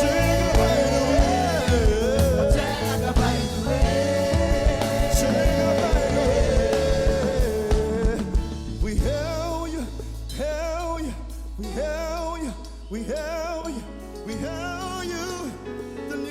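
Live gospel song: singing over instrumental accompaniment, with long held sung notes over a full, driving mix. About eight seconds in, the beat drops away, leaving a steady low held note under a wavering, ornamented vocal line.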